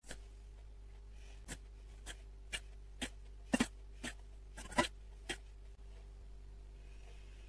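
A metal spoon tapping and clinking against a stainless steel bowl of melted chocolate, about eight light taps at uneven intervals, the two loudest a little past halfway, over a steady low hum.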